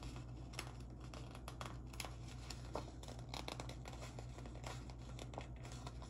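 Clear plastic stickers being peeled by hand off their sticker sheet: a faint, irregular run of small crinkles and ticks.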